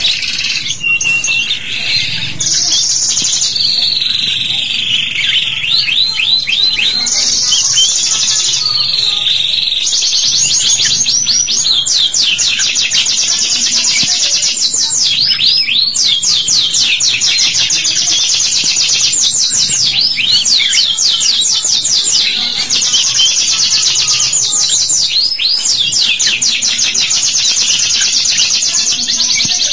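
Domestic canaries in full song: long runs of fast, trilled repeated notes, one trill type giving way to another every second or two.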